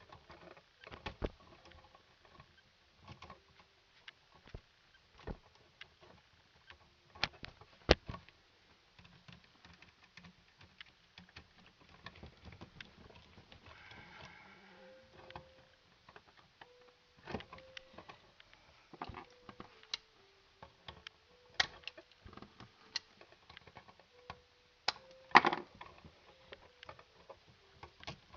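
Scattered clicks, taps and knocks of hands and tools working the wires and receptacle in an electrical outlet box, the loudest knocks about 8 and 25 seconds in.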